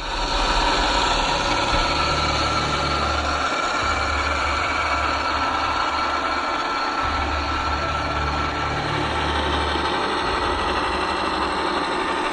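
Steady engine-like running with a low rumble that comes and goes every few seconds.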